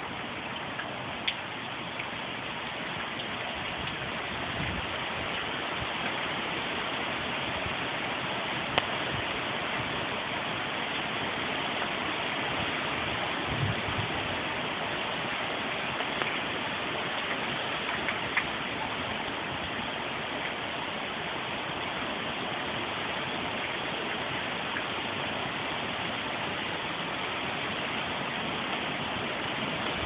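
Steady rush of heavy rain and gusty storm wind, with a few sharp ticks and a couple of brief low thumps.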